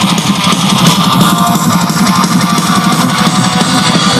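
Rock music with guitar and drums playing loudly through a pair of Tevion two-way bookshelf speakers during a speaker test.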